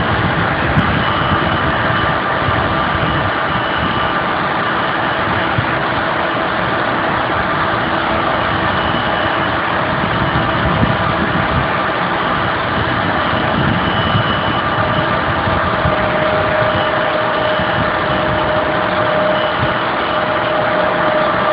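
Steady engine and air-system drone inside a parked airliner's cabin, with a few faint steady whines.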